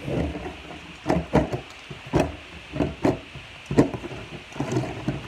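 A series of irregular knocks and thumps, roughly one or two a second.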